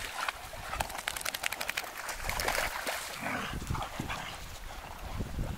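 Dogs play-fighting on sand, with short dog vocal noises and scuffling. A low rumble joins about three and a half seconds in.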